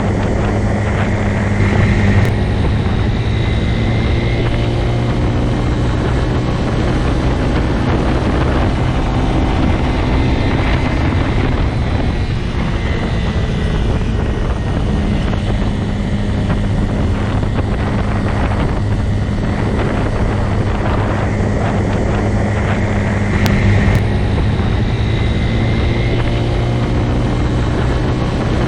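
Motorcycle engine running steadily at a constant speed, a low, even drone with no revving.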